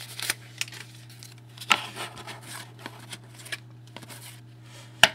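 Trading cards from a freshly opened hockey card pack being handled and sorted by hand, with scattered light clicks and snaps of card stock, one sharper snap about a second and a half in and another near the end.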